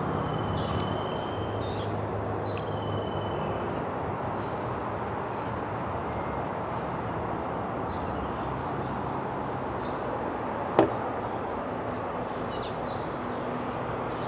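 Steady outdoor ambience with a low hum of distant traffic and occasional short bird chirps. About eleven seconds in comes a single sharp knock, a small glass shot glass set down on the table.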